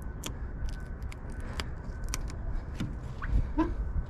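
Scattered light clicks and ticks of a blade trimming a vinyl overlay along the edge of a plastic tail-light lens, over a steady low outdoor rumble.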